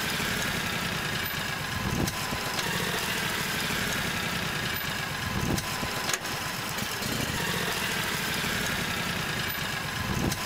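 A vehicle engine running steadily under a wide noisy hiss, with a few short knocks.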